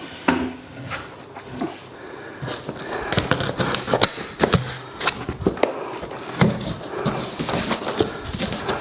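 Cardboard box and packaging being handled and opened: rustling and crackling with scattered sharp clicks and knocks.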